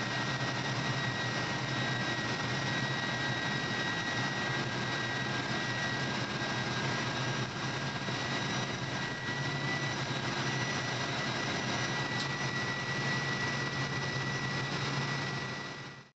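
Cabin noise of a Volvo coach cruising at highway speed: a steady drone of engine and road with a thin, constant high whine over it. The sound fades out just before the end.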